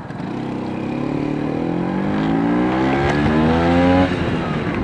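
Vespa P200E scooter's 200 cc two-stroke single-cylinder engine accelerating away from a stop. Its pitch rises steadily for about four seconds, then drops near the end as the rider shifts up a gear.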